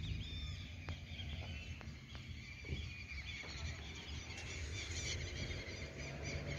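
Birds chirping, many short high calls in quick succession, over a low steady rumble.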